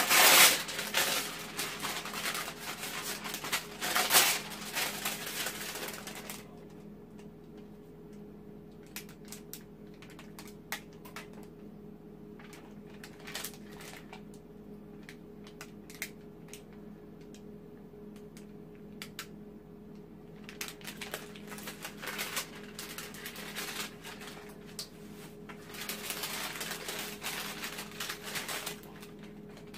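Parchment paper crinkling and rustling as it is torn off and handled, loudest for the first six seconds and again near the end. In between come scattered light clicks and taps over a steady low hum.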